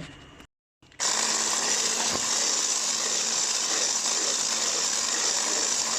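Electric hand mixer running steadily, beating cake batter made of egg, water and vanilla cake mix in a bowl: an even whir with a constant motor hum beneath it, starting after a brief silence about a second in.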